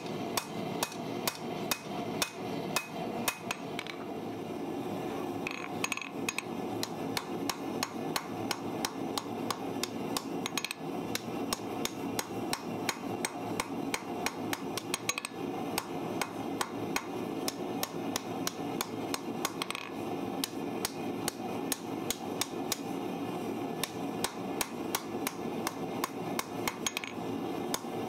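Hand hammer striking a red-hot steel farrier's rasp on an anvil in a steady run of forging blows, about three a second, over a constant rushing noise.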